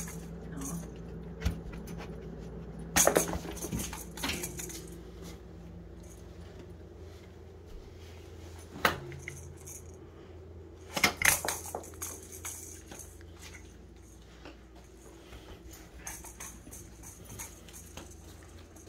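A pet chewing and tearing at a soccer ball: scattered scratchy crackles and clicks in clusters, the loudest about three seconds in and about eleven seconds in, over a steady low hum.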